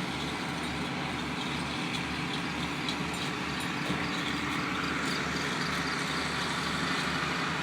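A steady mechanical drone with a low pulsing rumble, a faint hum and an even hiss, unchanging throughout.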